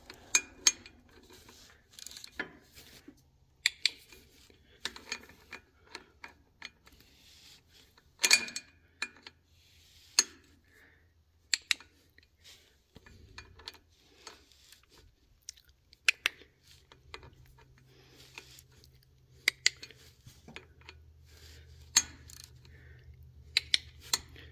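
Scattered sharp metallic clicks and clinks of a hand tool with a socket extension turning bolts into the V-belt pulley on a Cummins accessory drive. A faint low hum joins about two-thirds of the way through.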